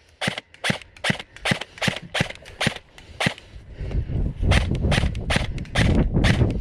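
Airsoft guns firing a steady string of single shots, sharp cracks about two to three a second. A low rumble joins the shots from about four seconds in.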